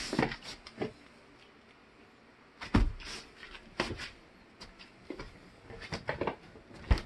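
A kitten's paws thumping and scuffling on a wooden floor as it pounces and runs: scattered knocks, a heavier thump about three seconds in and another near the end.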